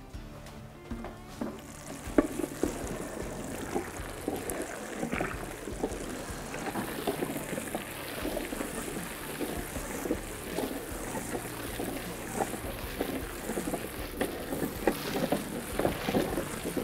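Stainless steel hand-crank meat mixer being cranked, its paddles churning wet ground venison and pork fat: a steady run of irregular squelching and slapping sounds from about two seconds in.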